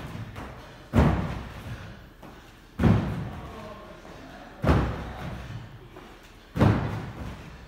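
Four heavy thuds of a person's feet landing in repeated box jumps, about two seconds apart, each echoing through a large gym.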